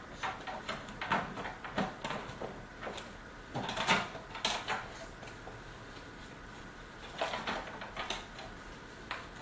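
Scattered light knocks, clicks and rustles of objects being handled and set down on a dresser top, among them a metal card tin and card boxes. The handling comes in clusters, loudest about four seconds in.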